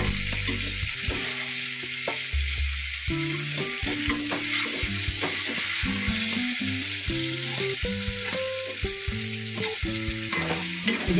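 Stuffed sponge gourd and spiced potato slices sizzling in oil in a nonstick kadhai, with a spatula scraping and turning them in short strokes. Low held musical tones that change in steps run underneath.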